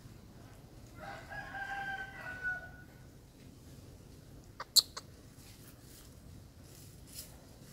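A rooster crows once, a single held call about two seconds long that falls away at its end, starting about a second in. A couple of seconds later comes a quick cluster of three sharp clicks, the loudest sound here.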